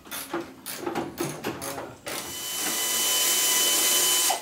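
Short clicks and knocks of tool work on the truck's sheet metal, then about two seconds in a pneumatic air ratchet starts running with a steady hiss and whine, backing out a bolt that holds the front clip to the cab.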